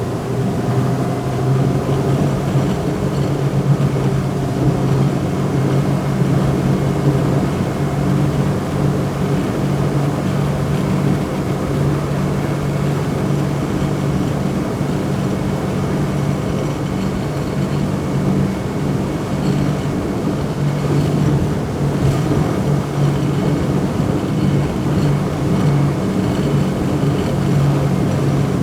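Speedboat engine running steadily at constant speed: an even low drone with a noisy wash over it, holding the same pitch throughout.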